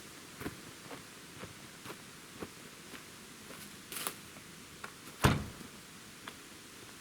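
Footsteps at a walking pace, about two a second, then a single louder knock about five seconds in.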